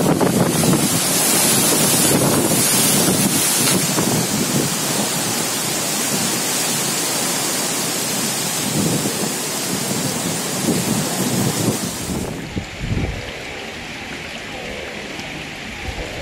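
Cyclone-force wind and heavy rain lashing coconut palms, a loud dense rush. About twelve seconds in it changes abruptly to a quieter, duller rush.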